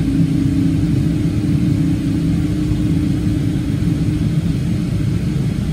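Boeing 777-200 jet engines heard from inside the cabin as the airliner taxis: a steady low rumble and hum with a steady drone tone that fades a little near the end.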